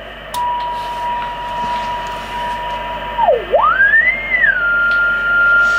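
Icom IC-201 transceiver's loudspeaker receiving in SSB mode: a weak 0.5-microvolt test-generator carrier is heard as a steady beat tone over the receiver's hiss, rather strong above the noise. About three seconds in, the tuning knob is turned and the tone swoops down low, sweeps up high, then settles on a steady higher pitch.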